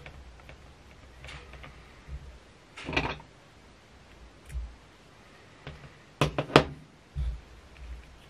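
Handling sounds at a fly-tying vise: small scissors snipping thread, a quick run of three sharp clicks about six seconds in, and soft low knocks in between.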